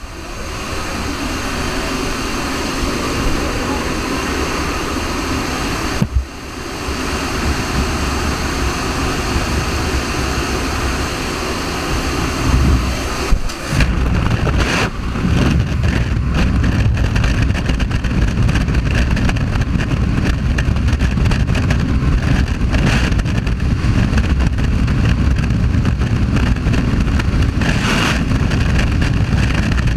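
Steady rush of freefall wind buffeting a helmet-mounted camera's microphone, with no speech. About halfway through it turns heavier and deeper.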